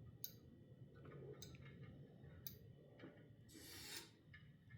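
Faint, sharp clicks about once a second from the brake limit switch at the base of an electric pallet jack's handle, clicking as the handle is moved now that the switch has been adjusted to detect it. A brief soft rustle follows near the end.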